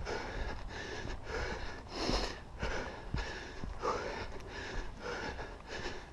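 A person breathing hard in a steady rhythm, about two breaths a second, over a steady low rumble.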